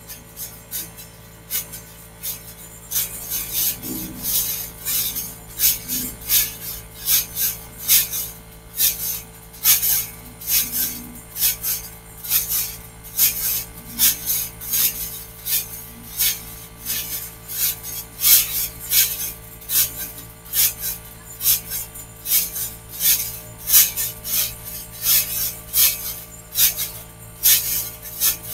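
A trampoline being bounced on: a steady rhythm of short rasping swishes, about two a second, from the springs and mat stretching with each bounce, getting louder after the first few seconds.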